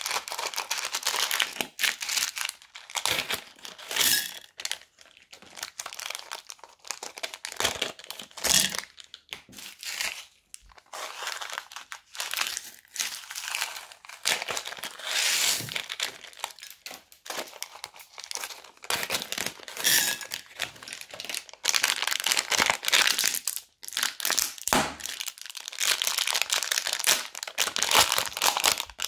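Thin plastic zip-lock bags crinkling and rustling as they are handled, opened and squeezed empty, with scattered sharp clicks and gaps between handlings.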